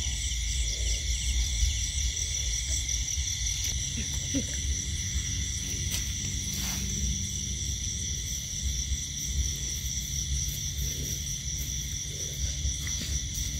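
Steady night chorus of insects, a continuous high trilling at several pitches at once, over a low rumble.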